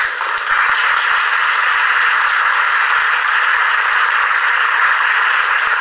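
Audience applauding, a steady crowd of many hands clapping that swells about half a second in.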